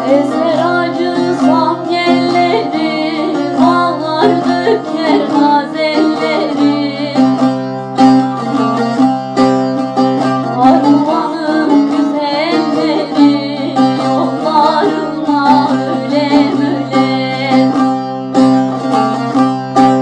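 Background folk music: a plucked string instrument playing over steady held low notes, with an ornamented singing voice winding above it.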